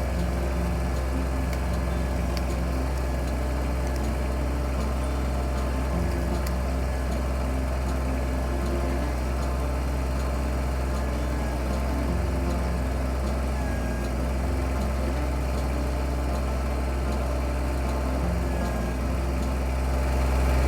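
Kubota BX25D compact tractor's three-cylinder diesel engine running steadily at a low, even speed, getting a little louder near the end.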